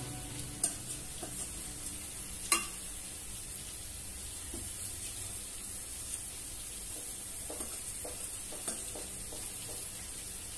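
Small stuffed brinjals frying in oil in a kadhai: a steady sizzle, with occasional clicks and knocks of a utensil against the pan as the brinjals are turned one by one. The sharpest click comes about two and a half seconds in.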